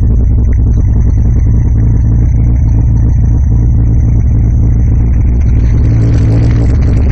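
Ford 5.0 V8 idling steadily, running without its earlier noise now that the rocker arms are correctly torqued and the loose crankshaft pulley has been tightened.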